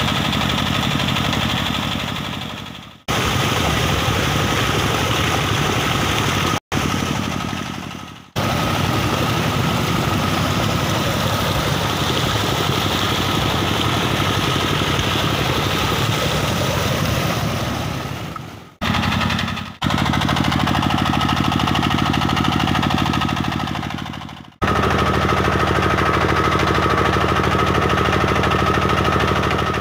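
Tubewell pump's diesel engine running steadily, with water gushing from the outlet pipe into a concrete tank. The sound fades out and cuts back in several times.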